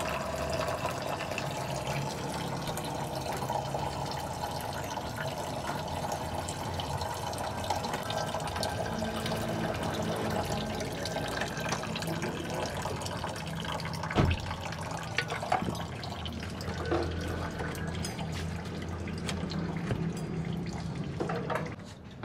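Used engine oil draining from the Suzuki Alto's oil pan into a metal drain tray: a steady splashing trickle. A few sharp knocks come in the second half, over a low steady hum.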